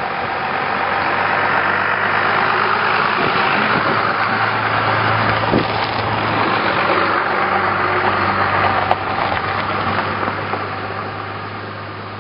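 Pickup truck towing a trailer drives past on a gravel road: tyres crunching on gravel over a steady engine hum. The sound builds as it approaches and fades away near the end.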